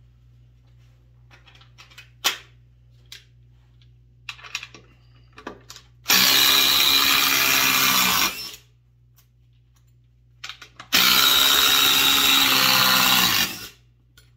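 Dewalt DCF840 cordless impact driver hammering a long screw into stacked 2x4 lumber, in two loud bursts of about two and a half seconds each, a couple of seconds apart. A few light handling clicks and knocks come before them.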